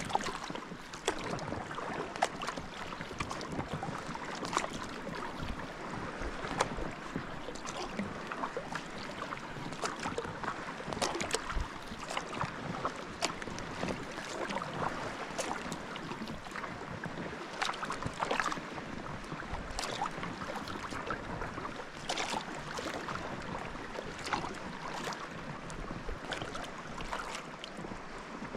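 Sea-kayak paddling: the paddle blades dip and drip in irregular small splashes over a steady hiss of water along a folding kayak's hull.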